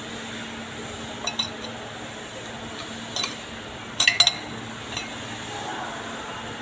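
Metal automatic-transmission parts clinking as a clutch piston ring is handled and seated in the transmission case: a few light clicks, then a quick cluster of sharper clinks about four seconds in.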